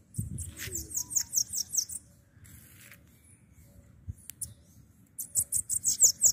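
Bananaquit (sibite) singing: two runs of quick, very high notes, each note falling in pitch, about eight a second. The first run lasts about two seconds from the start and the second begins about five seconds in.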